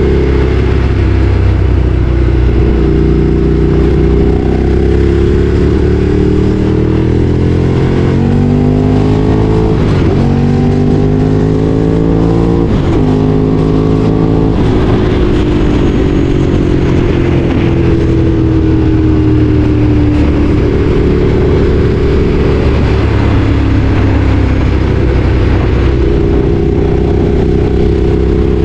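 Ducati Streetfighter 848's L-twin engine pulling on the move. Through the middle stretch the note climbs and then drops several times, as at gear changes, before settling to a steadier note with a slight dip near the end.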